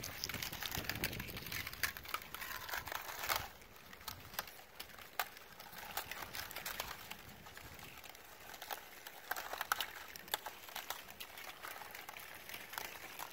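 Lake ice pushing slowly onto a rocky shore, crackling and clinking in many small, irregular sharp ticks. A louder rush of noise covers the first three seconds or so, then drops away and leaves the ticking.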